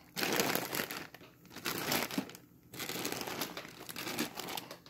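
Clear plastic bulk bags of nuts crinkling as they are handled and shifted, in three spells with short pauses about one and a half and two and a half seconds in.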